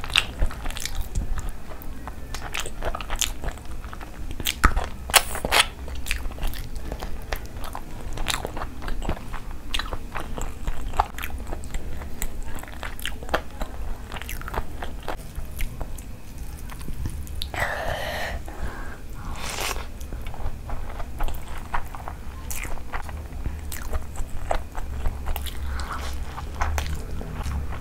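Close-up eating sounds: crunchy bites into a fried chicken pakoda and steady chewing of mouthfuls of curry and rice, with many sharp crackly clicks.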